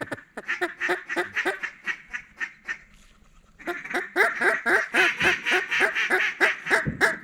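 Rapid strings of loud mallard-style quacks, about five a second, easing off around three seconds in and then starting again louder.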